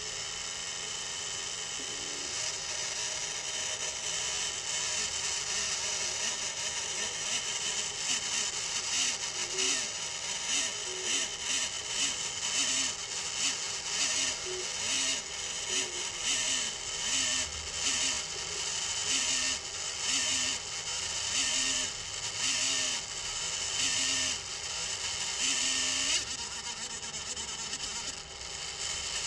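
3D printer running: a steady high whir of its cooling fans, with a regular run of short, changing notes from the stepper motors as the printer moves.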